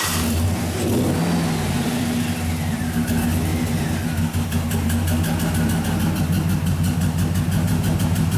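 2007 Cadillac Escalade's 6.2-litre V8 catching after cranking and running with the throttle held slightly open to keep it alive, with a pulsing beat. The engine is misfiring on several cylinders, worst on 7 and 8, which makes it hard to start and hard to keep running.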